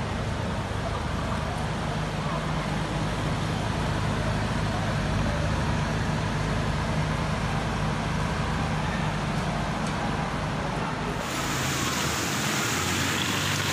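Heavy rain falling on a street, a steady hiss with a low rumble of traffic underneath. About eleven seconds in it changes abruptly to a brighter hiss.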